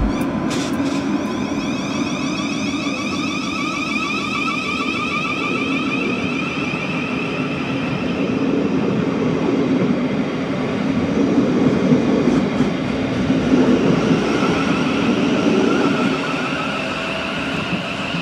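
South Western Railway Class 707 electric multiple unit pulling away along the platform. Its traction motors give a whine that rises in pitch as it accelerates, over a steady rumble of wheels on the rails.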